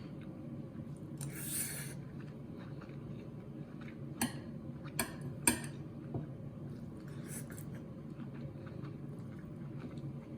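Cutlery clinking against dishware while the fried rice is eaten: one brief scrape about one and a half seconds in, then a few light clicks a little past halfway.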